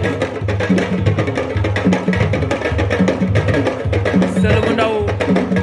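Sabar drums played live in a fast, dense rhythm, with a low drum pattern repeating under sharp hand-and-stick strokes; a voice sings or calls briefly near the end.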